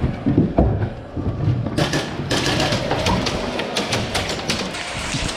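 Dull thumps and knocks of a player moving in gear, then from about two seconds in a run of irregular sharp clicks and crackles, like footsteps on gritty ground and gear rattling.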